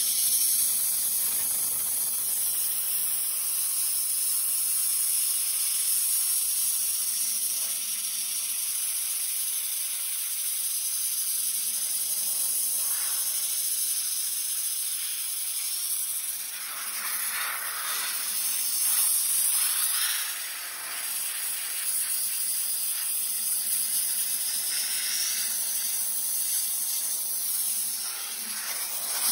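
Sandblaster nozzle blasting screened river sand with compressed air against a bare steel car frame, a steady loud hiss that eases briefly twice.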